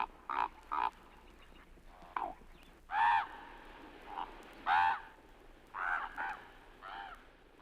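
A bird calling over and over with short calls, each rising then falling in pitch; the loudest come about three and five seconds in.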